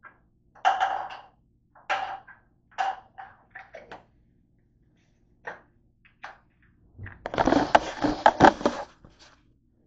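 Handling noise: a string of short rustles and knocks as things are moved about on a counter, then a dense clatter of rubbing and knocking from about seven to nine seconds in as the camera is picked up and moved.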